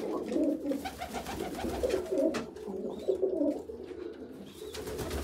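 Domestic pigeons cooing, several low coos overlapping in quick succession.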